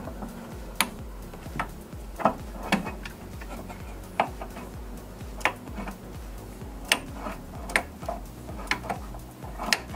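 Hand ratchet clicking in short, uneven strokes, one sharp click every half second to a second, as a water pump bolt is run down.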